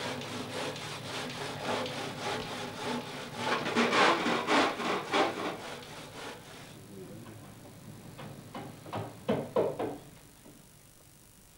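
Hand sawing: a saw worked back and forth in quick, even strokes, about three a second, fading after about seven seconds, then a few last louder strokes near the end.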